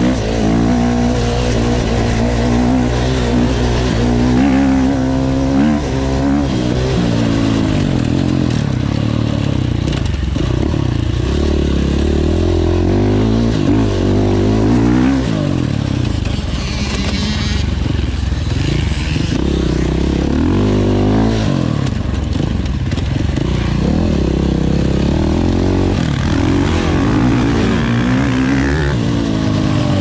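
Enduro motorcycle engine ridden hard, its revs climbing and dropping over and over as the bike accelerates and backs off.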